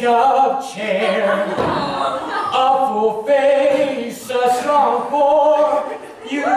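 Several voices singing together without instrumental accompaniment, holding notes with short breaks between phrases.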